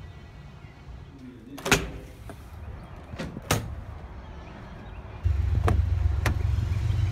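A few sharp knocks and clicks of a car door being handled and shut. About five seconds in, a steady low rumble of a car running starts suddenly and carries on.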